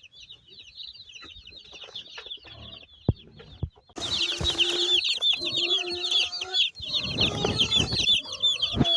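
Many newly arrived broiler chicks peeping all together in a constant high chatter, faint at first and much louder from about four seconds in. A few knocks and rustles of handling are mixed in.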